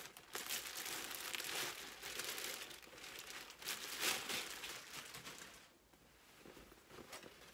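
Clear plastic garment bag crinkling and rustling as a jacket is pulled out of it, with many quick crackles; the crinkling dies down about two-thirds of the way through.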